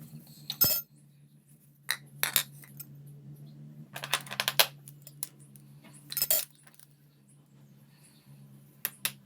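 Scattered clinks and clatters of small hard objects being handled, with a cluster of rapid clicks about four seconds in, over a faint steady low hum.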